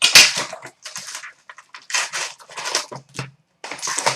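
Sealed boxes of hockey trading cards being torn open: wrapping and cardboard tearing and crinkling in a string of short bursts, the loudest right at the start.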